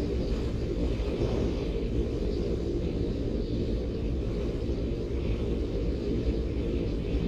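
Steady low rumble of wind buffeting the microphone, mixed with road noise, while coasting fast downhill into a headwind.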